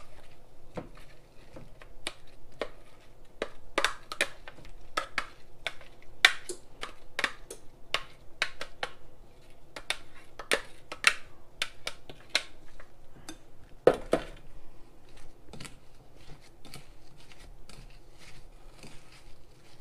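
Spatula scraping and knocking sliced apples out of a food processor bowl into a mixing bowl, then stirring the slices into the sugar mix: an irregular run of clicks and scrapes, with one louder knock about fourteen seconds in.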